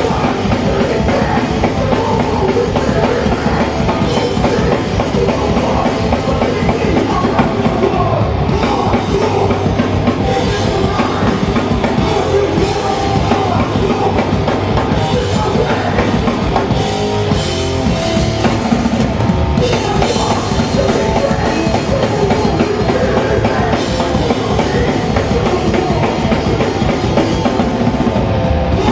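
Hardcore punk band playing live at full volume: distorted electric guitars and bass over fast, driving drums.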